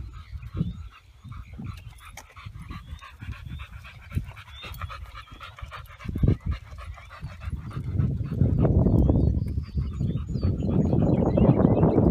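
Dogs panting as they walk on leash, with scuffing steps on concrete. A louder rough noise builds from about eight seconds in.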